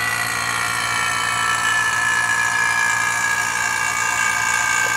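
Electric vacuum pump running steadily while evacuating a car's air conditioning system after a compressor replacement. It is a constant mechanical drone with a whine that falls slowly in pitch.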